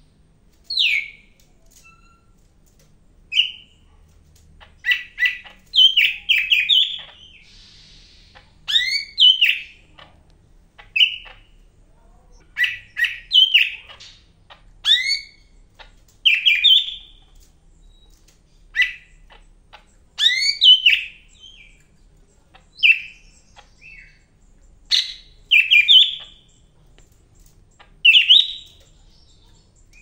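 Caged male yellow-crowned leafbird (cucak hijau, the 'Medan' type) singing loudly and vigorously. It gives bursts of short chirping and sweeping whistled notes every second or two, separated by brief pauses.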